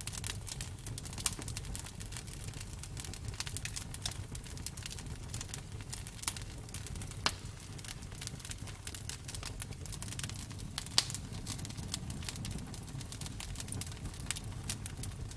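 Campfire burning with a low steady rumble of flames and irregular sharp crackles and pops of burning wood, a few louder snaps among them.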